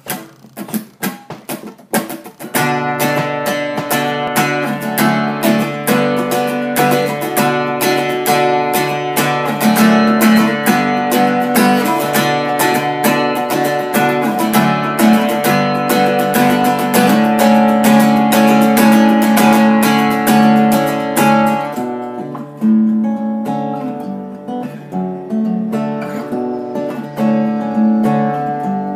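Acoustic guitar played solo: a few single plucked notes, then steady rhythmic strumming of chords from about two and a half seconds in. The playing gets lighter and quieter about three quarters of the way through. This is the instrumental intro before the vocals begin.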